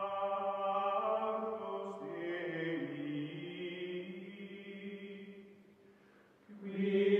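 Outro music of choir-like voices singing long held chords. The chord shifts about two seconds in and fades away towards six seconds. A louder chord comes in again just before the end.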